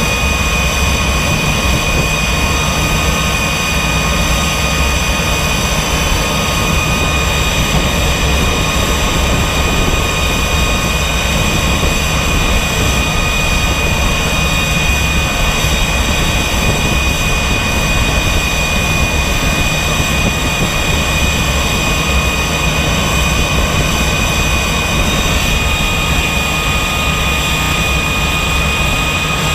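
L-39 Albatros jet's single turbofan engine running steadily after start-up: a loud, even rushing drone with a steady high-pitched whine over it.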